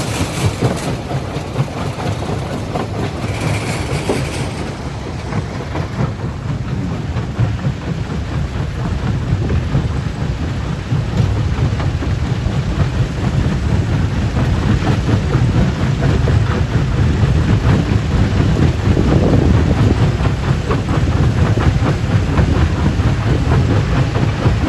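Stone crushing plant running: a steady heavy rumble with dense rattling and clattering of rock going through the crusher, growing a little louder partway through.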